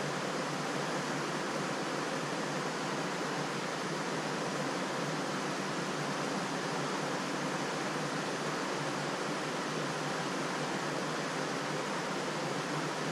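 River water running steadily, an even rushing hiss that does not change.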